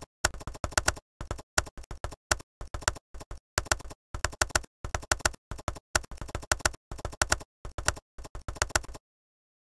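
Typing sound effect: rapid key clicks in short runs of a few strokes each, with gaps of dead silence between runs, stopping abruptly near the end.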